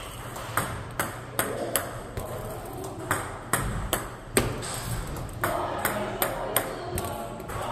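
Table tennis ball clicking sharply off paddles and table, a quick irregular run of hits about two or three a second.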